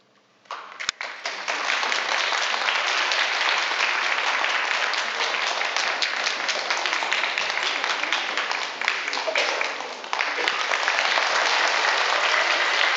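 Audience applauding. After a moment of near silence, the clapping breaks out about half a second in and goes on steadily.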